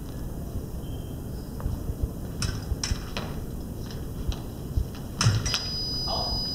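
Foil blades clicking against each other in a series of sharp metallic taps, with footwork thumping on a hardwood floor. About five and a half seconds in, an electric fencing scoring box sounds a steady high beep for about two seconds, signalling a touch.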